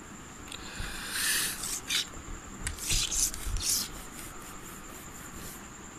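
A cloth wiping a whiteboard clean: a few quick rubbing strokes that stop about four seconds in.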